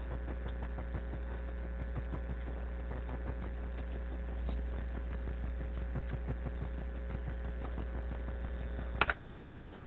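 Steady low electrical hum with faint hiss and scattered faint ticks. A sharp click about nine seconds in, after which the hum cuts off.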